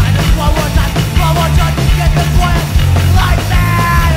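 Hardcore punk band's studio recording: loud, dense full-band rock with pounding drums and a heavy low end. A held note rings out near the end.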